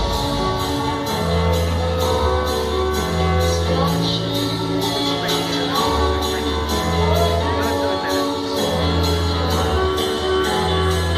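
Music with a steady beat of about two beats a second over long held bass notes and chords, with some singing.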